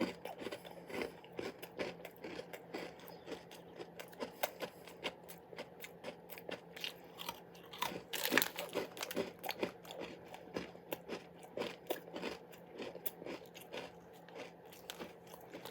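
A person biting into and chewing crunchy shortbread fingers close to the microphone: irregular crisp crunches throughout, with a louder cluster about halfway through.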